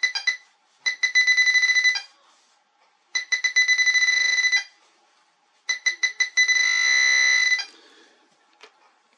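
Quest XPointer Max pinpointer beeping as a tiny coin is brought to its tip: four bouts of a high, steady alert tone, the first brief, each starting as a rapid stutter of beeps and settling into a continuous tone for a second or two.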